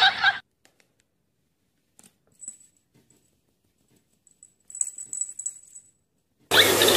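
A small bell on a cat's collar jingling faintly a few times, with soft taps in between. A sudden loud noise cuts in near the end.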